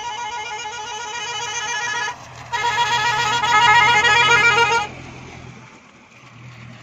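Vehicle horn held in long warbling blasts, one steady pitch that wavers rapidly. It drops out briefly about two seconds in, comes back louder, and stops at about five seconds.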